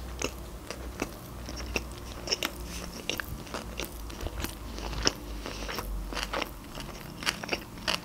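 A mouthful of sushi roll being chewed close to the microphone: irregular mouth clicks and smacks, several a second.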